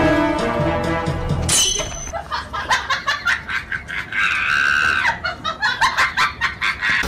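Background music that changes about one and a half seconds in, after a rising sweep, to a fast pulsing beat, with a brief high held sound in the middle.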